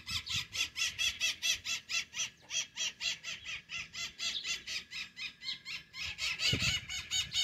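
A flock of maritacas (Brazilian parrots) screeching: a fast, unbroken run of harsh, high calls, about six a second.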